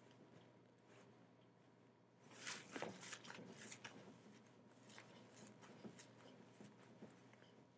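Faint rustling and tapping from a small child moving close to a webcam, with a louder flurry of clicks and rustles about two and a half to four seconds in and a few scattered taps after; otherwise near silence with a faint hum.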